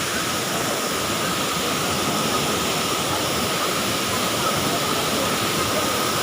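Waterfall rushing with a steady, loud roar of falling water, with a faint steady high tone running underneath it.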